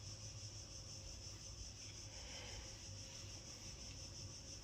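Quiet room tone: a steady high-pitched hiss over a low hum, with no distinct sound event.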